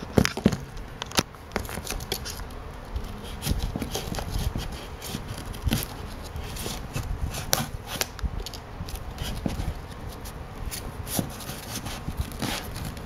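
A knife blade scraping and cutting at filament-reinforced packing tape on a cardboard package, making irregular scratches and sharp clicks, with the loudest clicks in the first second or so.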